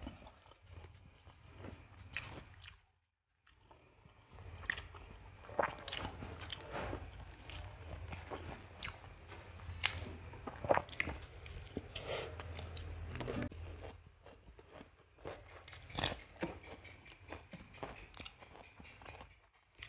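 Close-miked eating sounds: chewing and wet mouth smacks of a person eating rice and grilled fish by hand, with irregular clicks and rustles of fingers picking the food off a paper wrapper.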